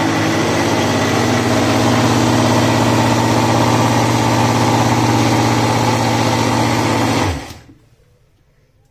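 National electric blender motor running steadily as it churns set cream (dahi) with water to separate butter, then switched off about seven seconds in, its whine dropping away as the motor spins down.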